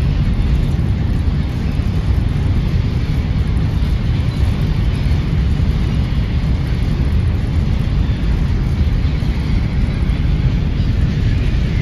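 Steady low rumble with a rushing noise, as on board a ferry under way.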